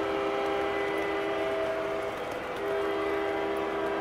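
Diesel air horn played by an MTH model SD90/43MAC locomotive's onboard sound system: one long chord-like blast that stops about two seconds in, then after a short break a second long blast, over the steady rumble of the model tank cars rolling along the track.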